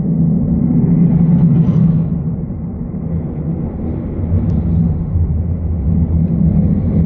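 Rocket engine of the Zhuque-3 VTVL-1 test rocket climbing after liftoff, heard as a loud, steady low rumble. It swells about a second in and again near the end.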